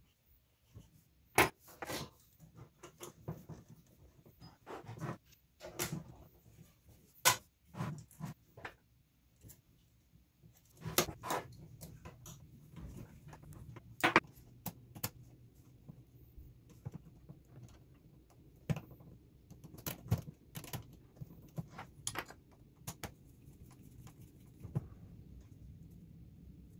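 Irregular clicks, taps and knocks of small metal and plastic parts being handled and fitted by hand, as an RC crawler's suspension links and axle are assembled. A few sharper knocks stand out, about a second and a half in, about seven seconds in and around fourteen seconds.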